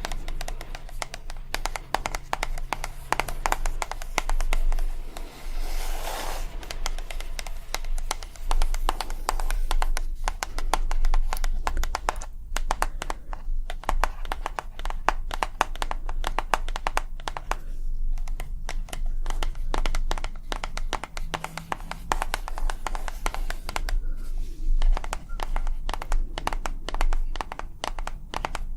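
ASMR tapping: fast, continuous taps and clicks, with a short rustle about six seconds in.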